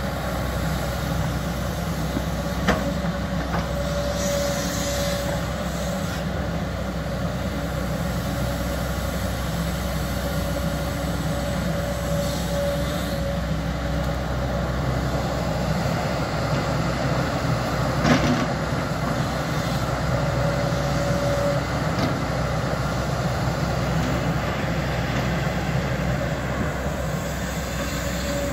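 JCB tracked hydraulic excavator running steadily while digging a trench, its engine a continuous low hum with a higher steady tone that comes and goes. Two sharp knocks, one a few seconds in and a louder one a little past the middle.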